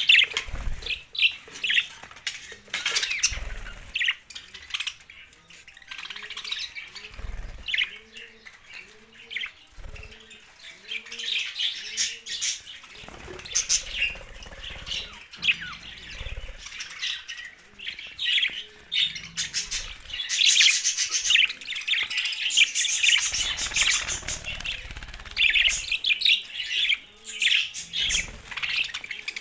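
Budgerigars chirping and chattering continuously, with many rapid overlapping calls, some harsher squawks among them.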